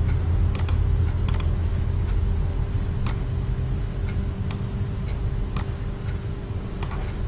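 Computer mouse clicking: several sharp clicks at uneven intervals, some in quick pairs, over a steady low hum.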